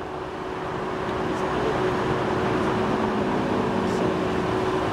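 Jet engine noise of a Delta Air Lines Airbus A330 rolling out on the runway just after touchdown: a steady rushing noise with a constant hum, slowly getting louder.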